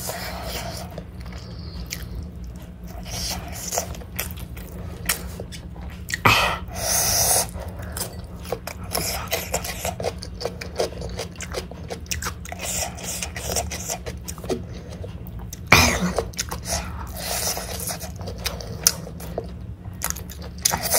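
A person chewing a mouthful of biryani rice, with many small wet mouth clicks and smacks. There is a louder breathy sound about six seconds in and a sharp, louder one around sixteen seconds.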